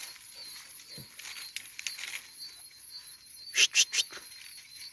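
Night insects chirring steadily in the background. About three and a half seconds in, a dog sniffs hard three times in quick succession with its nose at a burrow entrance.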